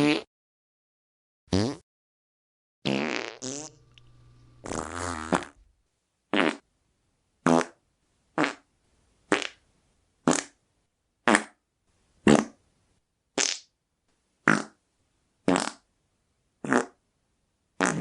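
A run of fart sounds: a few longer, drawn-out, pitched ones in the first six seconds, then a string of short blasts about once a second.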